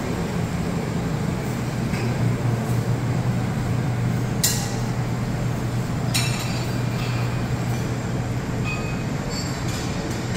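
Steady low mechanical hum of a buffet restaurant's machinery and ventilation, with two sharp clinks about four and a half and six seconds in.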